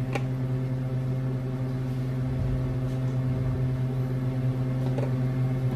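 Steady low electrical hum with a few fainter higher tones above it, unchanging throughout, from a running kitchen appliance motor.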